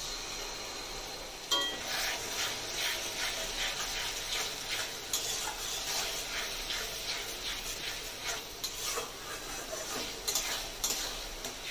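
Tomato paste sizzling in hot oil and fried onions in a metal kadai, with a metal spatula scraping and stirring around the pan in quick repeated strokes. There is a short metallic clink about a second and a half in.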